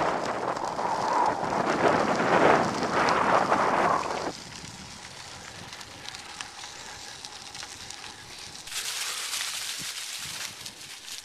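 Bicycle tyres rolling over a trail covered in dry fallen leaves, a crackling rustle. It is loud for about the first four seconds, then softer, and a brighter hiss comes back near the end.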